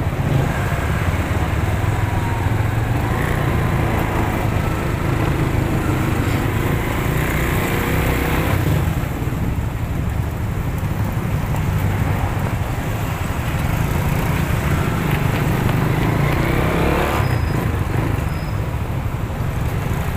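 Vperman 150 motorcycle engine running as it rides through traffic, a steady engine hum under road and traffic noise that eases slightly twice.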